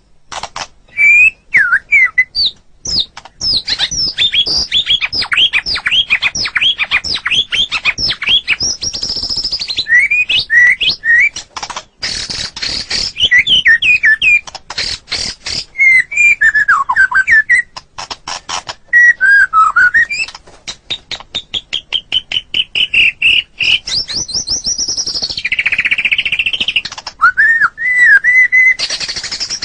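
White-rumped shama (murai batu) singing a long, varied song with barely a pause: quick whistled notes sweeping up and down, broken up by fast clicking rattles and trills.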